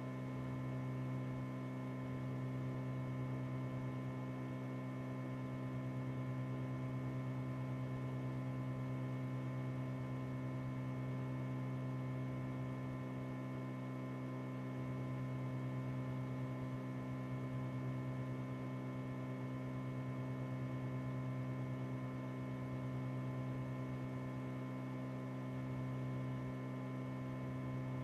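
Steady electrical mains hum, low-pitched with a stack of even overtones, unchanging throughout.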